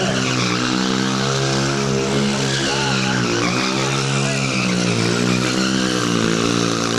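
Small motorcycle's engine revving hard, its pitch repeatedly rising and falling, over a steady hiss of tyres skidding on the pavement.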